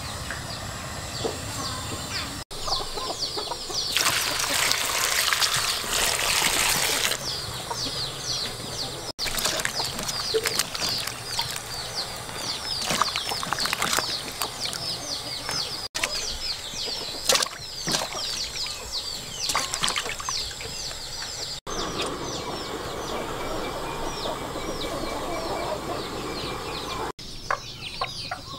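Outdoor yard sounds: many short high bird chirps repeat throughout, with chickens clucking. Water splashes as vegetables are washed by hand in a metal bowl, and there is a few-second rush of water noise about four to seven seconds in.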